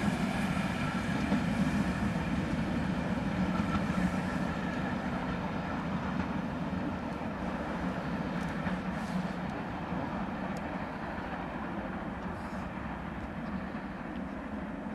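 Steam-hauled passenger train running away along the track, a steady rumble of wheels and the working locomotive that fades slowly as it moves off.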